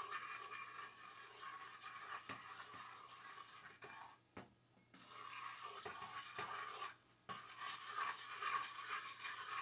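Faint, steady sizzle of curry powder frying in hot oil in a pot, with a few light clicks.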